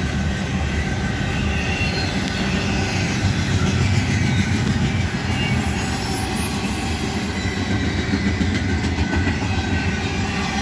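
Double-stack container well cars of a Union Pacific intermodal freight train rolling past close by: a steady rumble of steel wheels on rail.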